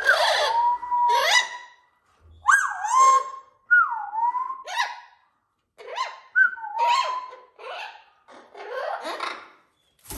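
Blue-fronted amazon parrots calling loudly: a string of raspy squawks mixed with whistled notes that slide down and up, coming in several bursts with short pauses between. The calling is the heightened noise of amazons excited in the run-up to breeding season.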